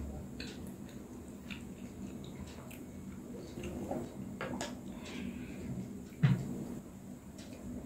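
Quiet handling noises while eating and drinking: scattered small clicks and taps from a plastic water bottle being sipped from its spout and from hands at the plate, with one low thump about six seconds in.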